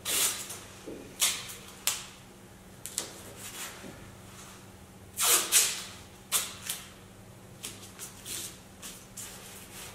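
Masking tape being pulled and pressed around a spot repair on car bodywork: a string of short ripping sounds, with two of the loudest close together about five seconds in, over a faint steady hum.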